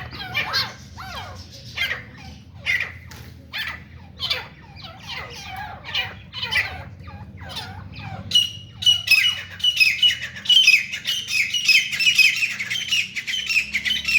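Grey francolin calling: harsh, irregular calls for the first half, then from about eight seconds in a loud, fast run of repeated high notes.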